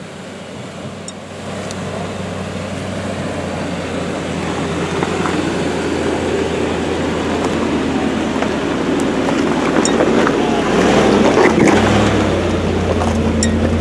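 Land Rover Discovery II engine running at crawling speed as the truck picks its way over rocks, growing louder as it comes close and passes, with tyres crunching on rock; the engine note steps up near the end.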